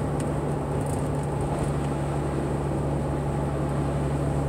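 A car being driven, heard from inside the cabin: a steady low engine hum and road noise.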